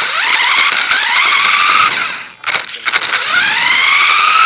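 Electric motor of a Dromida DB4.18 1/18-scale RC buggy whining as it accelerates, rising in pitch, cutting out about two seconds in, then spinning up again with a second rising whine, over a hiss of tyres on the ground. The battery is very low in power.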